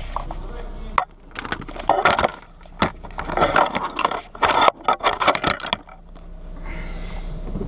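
Handling noise from a camera being fitted and adjusted by hand, right at the microphone: a quick run of knocks, clicks, scrapes and rattles for about five seconds, over a steady low hum.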